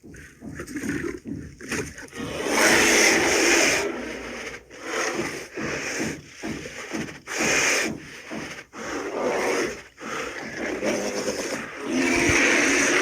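A bear calling in a run of rough, breathy bursts of varying length, the loudest about three seconds in and again near the end.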